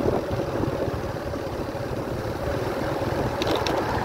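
A motor vehicle engine running at a steady speed, a constant drone over a low rumble of road noise, with a few faint short ticks near the end.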